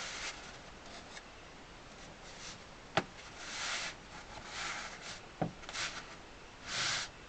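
Hands rubbing and pressing on accordion grille cloth: a few soft brushing swishes, with a sharp click about three seconds in and a smaller knock a couple of seconds later.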